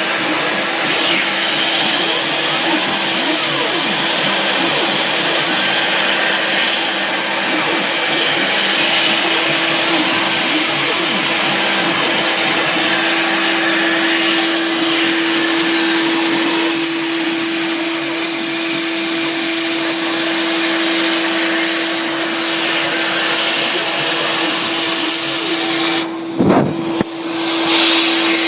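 Sieg SX2 mini mill under CNC control milling a hardwood block with a 6mm cutter: the spindle motor runs at a steady pitch over a loud, even cutting hiss, while the stepper-driven axes whine in short rising and falling pitches as the table moves. About two seconds before the end the sound briefly dips and one pitch sweeps down and back up.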